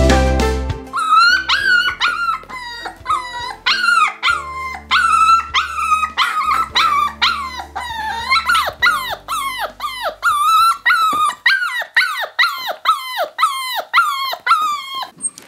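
Young cockerjack puppy (Jack Russell terrier × cocker spaniel cross), a few weeks old, crying in a long run of short high-pitched whines that fall in pitch, about two or three a second. Background music fades out under the first part.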